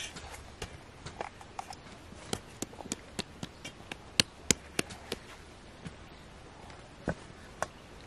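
Irregular sharp taps and knocks of kitchen tools on hard surfaces during pastry making, quick and frequent at first and then sparse. The two loudest knocks come close together about halfway through.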